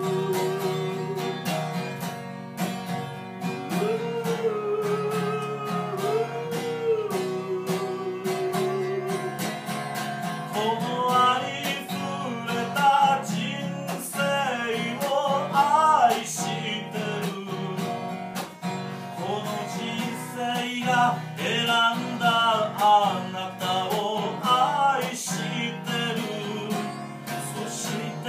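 Acoustic guitar strummed steadily in a live performance of a slow Japanese song. A man's singing voice comes in strongly about ten seconds in.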